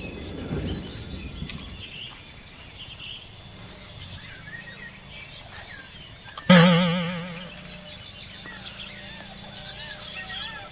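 Birds calling repeatedly in the background. About six and a half seconds in, a sudden loud wavering tone cuts in and fades away over about a second.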